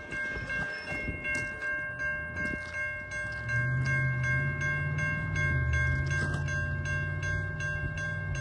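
Railroad crossing bell ringing in a steady run of about three strokes a second, while the low rumble of a diesel locomotive grows louder from about three and a half seconds in.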